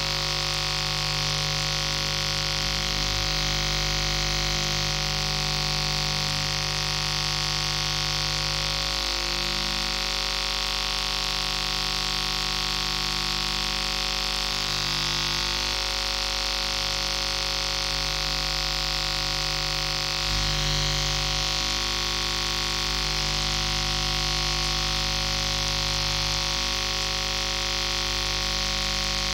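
Experimental electronic noise music from analogue machines: a steady wall of hiss and static over several droning hum tones, changing little throughout.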